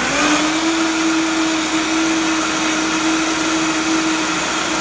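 Vitamix 5200 blender with water in the jar switched up to max power: the motor's pitch rises about a quarter of a second in, then it runs steadily at full speed.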